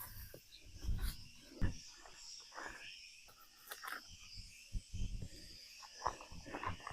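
Irregular rustling, scraping and light knocks as plastic drip irrigation lines are pulled out of the way among the garden plants. A steady high insect chirr runs underneath.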